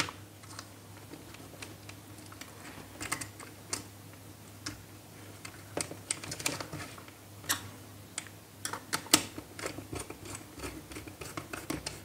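Irregular small clicks and taps of a wire and a screwdriver being worked into the screw terminals of a plastic electrical switch board, more frequent in the second half, over a faint steady low hum.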